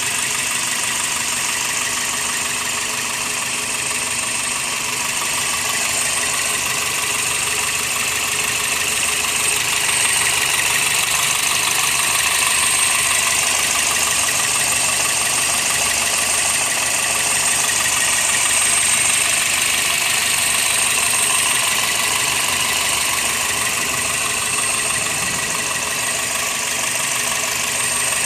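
1999 Toyota Corolla's four-cylinder engine idling steadily, fully warmed up: the state in which its misfire goes away.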